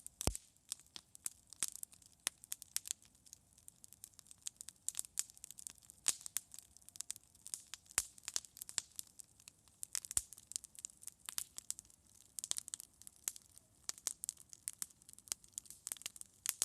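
Campfire crackling: a dense, irregular run of sharp pops and snaps, some louder than others, with a faint hiss between them.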